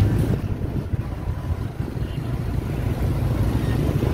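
Motorbike engine running while riding through street traffic, with a steady low rumble of engine and wind close to the microphone.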